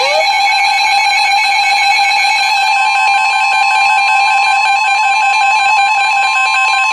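NOAA Weather Radio warning alarm tone heard through a weather radio receiver: a loud, steady electronic alarm tone, unbroken and unchanging. It signals that a new weather warning message is about to follow.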